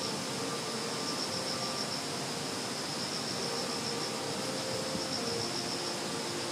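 Insects chirring in a steady, high-pitched trill with a faint even pulse, over a background hiss.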